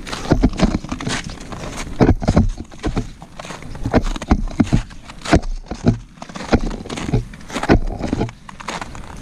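Boots crunching on the coarse, granular surface ice of a glacier, walking steps at roughly two a second.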